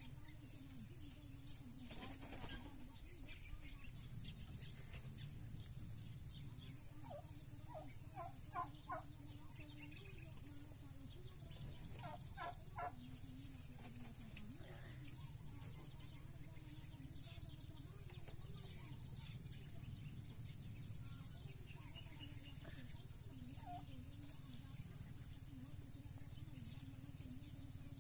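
Faint poultry calls: two short runs of three or four notes about eight and twelve seconds in, with a few scattered calls later, over a steady insect drone.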